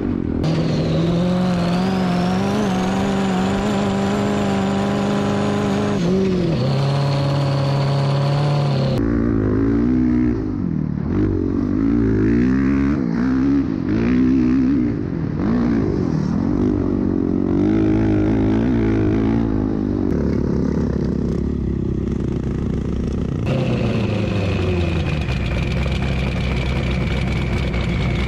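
Honda CRF450R single-cylinder four-stroke dirt bike engine heard from on the bike while riding, held at a steady pitch, then revving up and down repeatedly through the middle, with a low rush of wind. The engine note jumps abruptly a few times.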